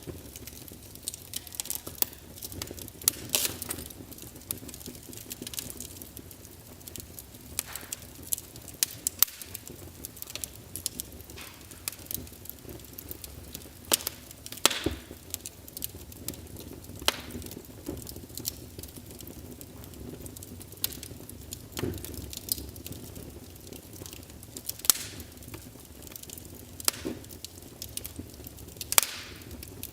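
Wood fire burning in a fireplace, crackling with irregular sharp pops over a low steady hiss.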